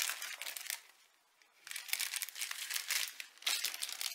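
Plastic packaging crinkling as it is handled: a bundle of small zip-lock bags of rhinestones and a clear plastic sleeve. The rustling stops briefly about a second in, then carries on.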